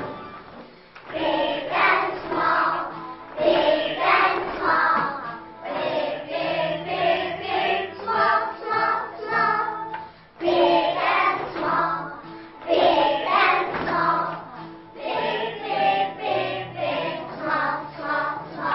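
A class of children singing a children's song together in unison over recorded backing music, in short phrases.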